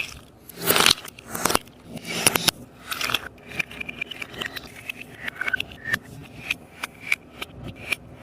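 Sticky taba squishy being squeezed and handled. A few longer rustling swells in the first three seconds give way to a run of quick small clicks and pops as the sticky surface pulls apart.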